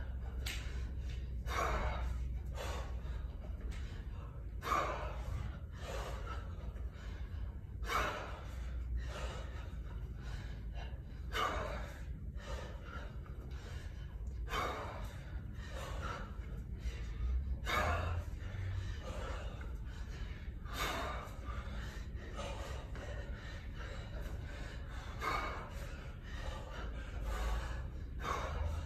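A kettlebell lifter breathing hard and forcefully through continuous repetitions: a strong breath about every three seconds in time with each lift, with quicker, lighter breaths between.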